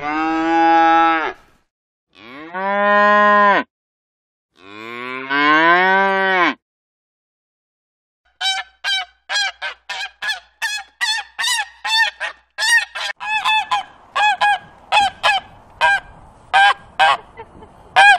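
A cow mooing three times, each moo about a second and a half long. After a short silence comes a turkey calling in a long, rapid series of short, sharp calls, about two or three a second.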